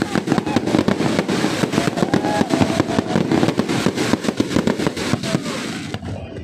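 Fireworks going off: a dense, rapid run of many sharp pops and bangs, thickest in the middle and thinning out near the end.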